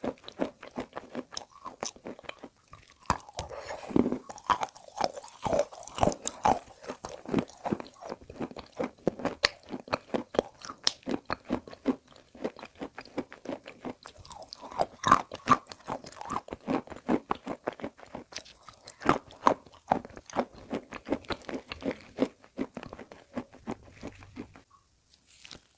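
Close-up crunching and chewing of pieces of chalk coated in edible clay paste: dense, rapid crisp crunches, several a second, that stop just before the end.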